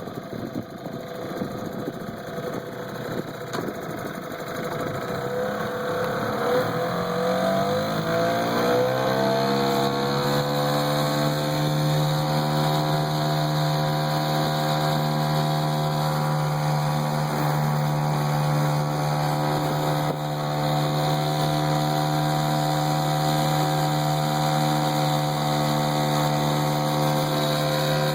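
1973 Mercury 4 hp (model 40) water-cooled single-cylinder outboard motor running. Its pitch rises over the first ten seconds or so as it speeds up, then it holds a steady, even speed.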